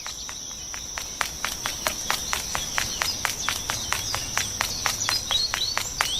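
Insects chirring: a steady high-pitched trill with a regular ticking pulse of about five ticks a second, and a few short chirps near the end.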